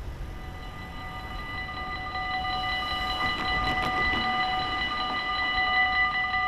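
Dutch level-crossing warning bells ringing steadily as the crossing closes, getting louder a couple of seconds in. A car drives across the crossing about halfway through.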